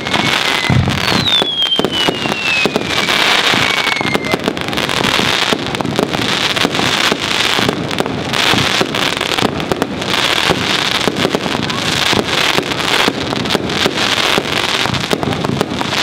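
Fireworks finale: an unbroken barrage of rapid bangs and crackling stars. Two whistles fall in pitch during the first four seconds.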